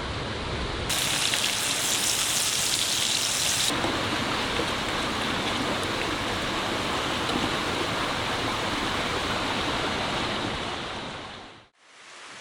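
Steak sizzling in a pan, a steady crackling hiss. It is brighter and louder from about one second in to nearly four seconds in, and it fades out near the end.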